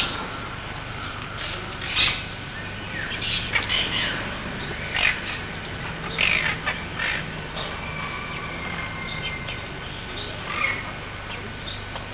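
Several birds calling: many short, harsh squawks and chirps at irregular intervals.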